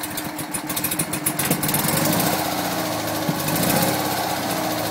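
1958 BMW R50's air-cooled flat-twin engine running steadily with a rapid, even firing beat on its first start after restoration. It gets a little louder from about two seconds in, then holds steady.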